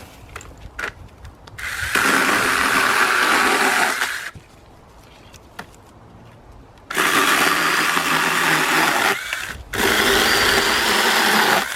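Sainlogic 6-inch battery-powered mini chainsaw cutting into a tree limb in three bursts: a short run, a pause, then two longer runs close together, each starting and stopping abruptly.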